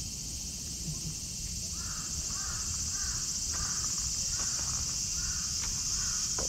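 A steady, high-pitched insect chorus, with a bird calling in a quick series of short notes, about two a second, from about two seconds in. A few faint footsteps on sandy ground.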